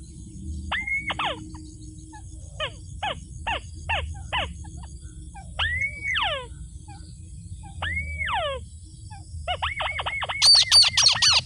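Rail calls, white-breasted waterhen or white-browed crake, as used to lure the birds into a trap: single hooked notes that rise and fall, short runs of quick notes, then a fast, loud series of rapid repeated notes starting near the end.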